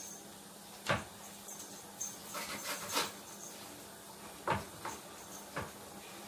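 Kitchen knife cutting into raw chicken pieces and knocking on a wooden cutting board: several sharp knocks a second or two apart, with faint rubbing from handling the meat.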